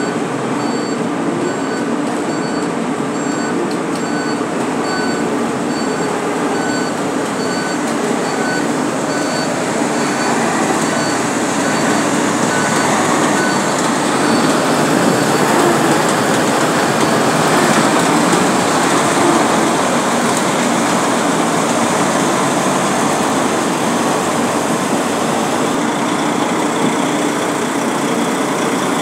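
Diesel dump truck engines running and moving close by, a loud steady heavy mechanical din that grows louder around the middle as a loaded truck passes. A faint high beep repeats about twice a second through the first half.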